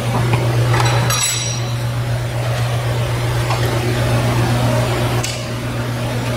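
Steady low hum of shop machinery, with a brief light metallic clink about a second in.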